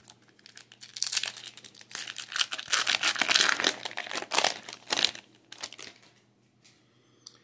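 A Topps Merlin Chrome soccer card pack's wrapper being torn open and crinkled by hand: a dense crackling that starts about a second in, lasts some four seconds, then fades out.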